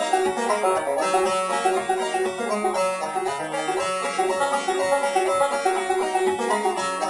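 Instrumental background music: a fast, busy tune of rapid plucked-string notes.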